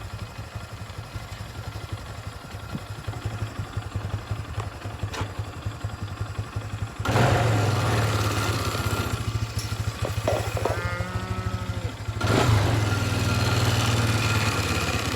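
Four-wheeler (ATV) engine running at low speed while creeping through a gate. It picks up throttle and gets louder about halfway through, and again near the end. A short pitched call, likely a cow lowing, comes in between.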